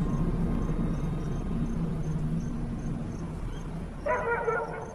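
A low background drone fading slowly, with a dog giving one short cry about four seconds in.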